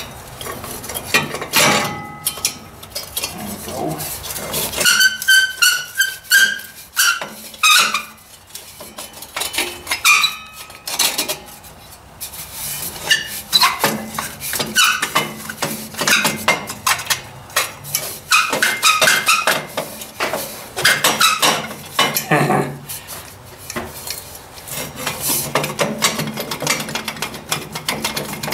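Hand tools and metal exhaust parts clinking, knocking and scraping as a tractor's exhaust pipe and muffler are worked loose. A steady run of small knocks and scrapes, with a metal part ringing briefly now and then.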